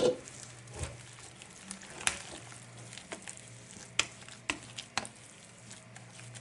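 Wire balloon whisk stirring a thick, wet batter of ground red lentils and grated carrot in a bowl. Under the soft stirring, irregular sharp clicks come about once a second as the whisk wires knock against the bowl.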